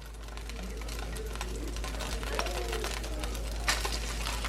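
Chicken pieces frying in hot oil in a pot, a steady sizzle with scattered sharp crackles and pops.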